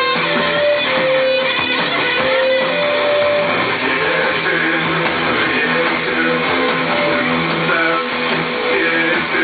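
Live rock band playing, led by an electric guitar holding long sustained lead notes over strummed guitar and bass.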